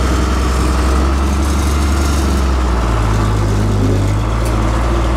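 Old farm tractor's engine running steadily as it is driven. About three seconds in, its low note shifts upward.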